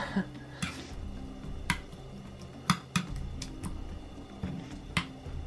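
A metal spoon stirs thick porridge in a ceramic bowl, with sharp clinks now and then as the spoon strikes the bowl, about seven in five seconds.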